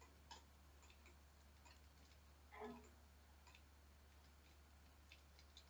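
Near silence: faint scattered clicks of a computer mouse's buttons and scroll wheel, under a steady low hum. About two and a half seconds in there is one slightly louder short sound.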